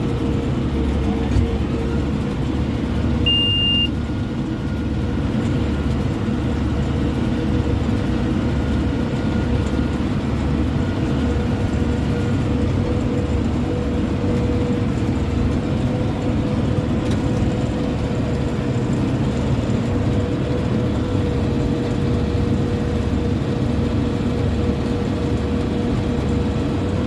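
Farm tractor engine running steadily under load while pulling a hay baler, a continuous drone with a held tone. A brief high beep sounds about three seconds in.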